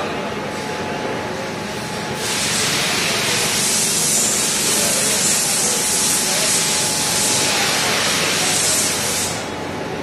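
A high-pressure jet hissing steadily and loudly. It starts sharply about two seconds in and cuts off near the end.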